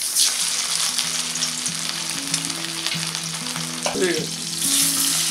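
Pieces of turmeric-coated fish frying in hot mustard oil in a wok, a steady sizzle that grows louder near the end as a metal spatula turns the pieces.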